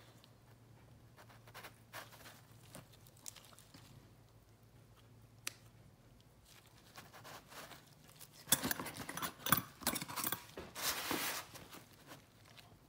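Small dissecting scissors snipping through the tough wall of a preserved cow's eye, with gloved handling: scattered faint clicks, then a denser few seconds of clicking and rustling about two-thirds of the way through.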